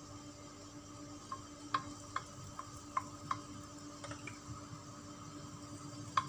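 Beaten egg being stirred in a plastic bowl, a utensil clicking against it about two to three times a second, then the egg poured into a lightly oiled non-stick pan with a faint sizzle. A wooden spatula clicks on the pan near the end, over a steady low hum.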